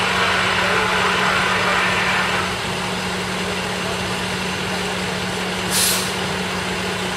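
Fire engines idling steadily at a fire scene, a constant low engine hum under a dense layer of hiss. A short, sharp hiss comes about six seconds in.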